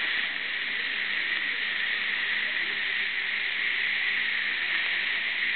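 Steady hiss from dental equipment at work on the gum: the suction tip and the Waterlase MD laser handpiece with its air-water spray, running evenly without a break.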